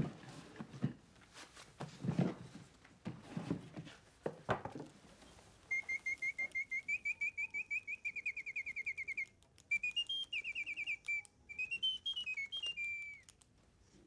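A few rustles and knocks as a gift box is opened, then a small caged bird sings: a fast trill of evenly repeated high notes for several seconds, followed by varied whistled phrases that glide up and down before stopping about a second before the end.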